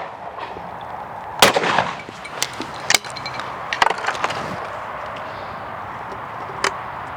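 A Purdey Sporter over-and-under shotgun fires once about a second and a half in, a sharp report with a short echo, about two seconds after the previous shot. Then there are a few lighter clicks and knocks.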